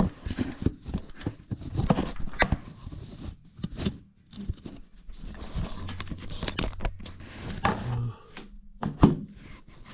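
Someone moving about in a crawl space: irregular scraping, crunching and knocks of body and hands close to the microphone, with a faint low hum for a couple of seconds in the middle.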